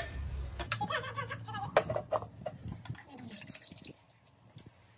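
Liquid poured from a clay pot into a metal wok, a short splashing pour about three seconds in, after a few light clicks and clinks.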